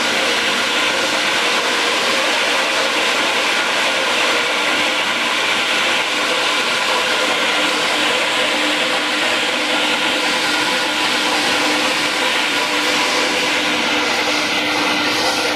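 Crumble feed pellet-making machine running steadily: an even, loud mechanical drone with a constant hum.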